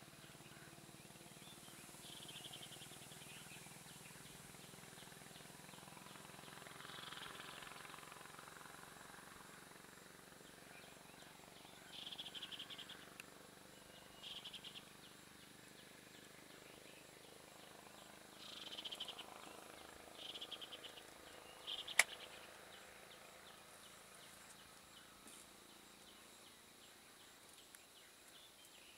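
Faint forest ambience: several short chirping trills and a steady high insect hum, with one sharp click about three-quarters of the way through.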